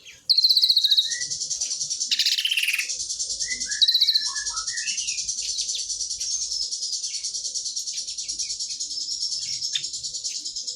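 A songbird singing a fast, high, continuous trill in the cililin style, broken by louder descending rattling phrases near the start, about two seconds in and about four seconds in, with scattered lower chirps and whistled notes between them.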